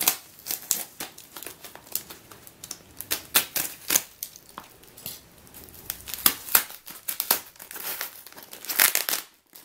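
Shiny yellow plastic parcel wrapping being torn and peeled off by hand: irregular crinkling and ripping, with louder rips about a third of the way in and again near the end.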